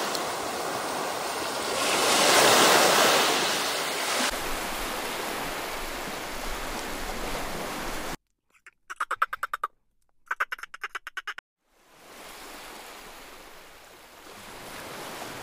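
Sea waves washing onto the shore, swelling about two seconds in. About eight seconds in the surf cuts out to near silence, broken by two short runs of rapid, evenly pulsed calls, and then softer surf comes back.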